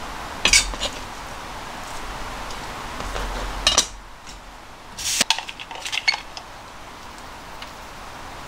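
Kitchen knife and utensils knocking and clinking against a plastic cutting board and dishes while chicken is cut and salted: a few sharp knocks, one just before the middle, then a run of clinks about five seconds in, over a steady background hiss.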